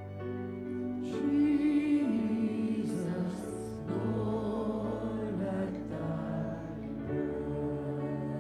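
Church worship music: sustained keyboard chords, with singing that comes in about a second in and wavers in pitch before giving way to the held chords near the end.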